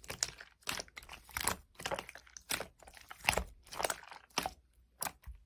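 Slime being squished and pressed by hand, giving a quick run of short crackling, popping squishes, a few each second.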